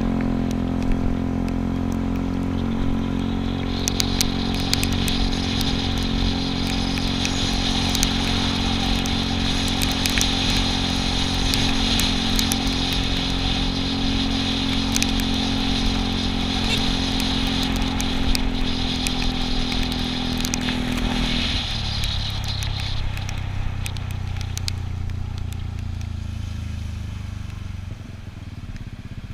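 Yamaha Cygnus scooter's small single-cylinder engine cruising at a steady pitch, with a steady hiss and scattered light clicks. About two-thirds of the way through the throttle closes and the engine drops to a lower, quieter note as the scooter slows.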